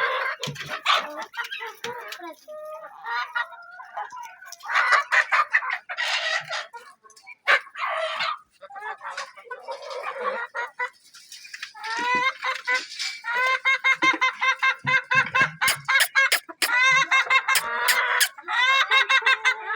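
Domestic hens clucking and calling, scattered at first, then a long run of quick, repeated calls through the second half, with a few sharp clicks among them.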